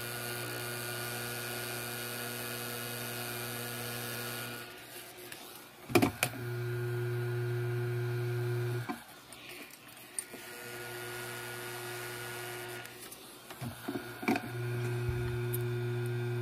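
Hot-air gun blowing with a steady hum and hiss, shrinking heat-shrink tubing onto a model locomotive axle. It cuts out and comes back several times, with a sharp click about six seconds in and another near the end.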